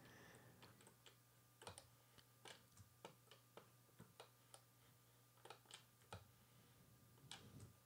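Faint, irregular clicks from a computer mouse, one or two a second, over a low steady hum.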